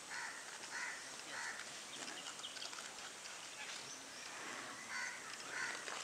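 Crows cawing: a quick run of three harsh caws at the start and another run near the end.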